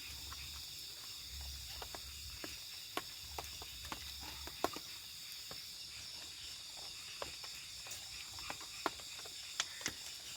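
Steady chorus of night insects, crickets among them, with scattered small sharp clicks and taps.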